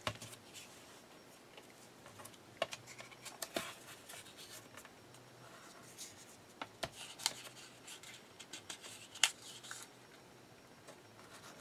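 Paper being handled and smoothed down by hand on a cutting mat: light rustling and sliding with scattered small clicks and taps, one sharper click about nine seconds in.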